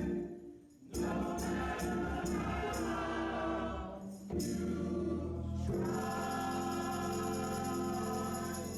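Gospel choir singing with instrumental backing and a tambourine keeping the beat, with short breaks near the start and about four seconds in.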